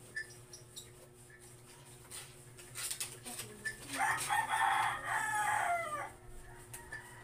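A rooster crowing once, about two seconds long and falling in pitch at the end. A few faint clicks come before it.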